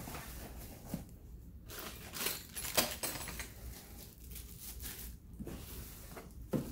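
Plastic wrap crinkling and cardboard rustling as a plastic-wrapped steam canner pot is handled and lifted out of its shipping box, with a few light knocks and clicks.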